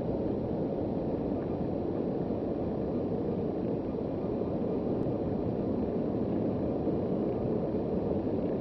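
Steady rushing noise of surf breaking on a sandy beach.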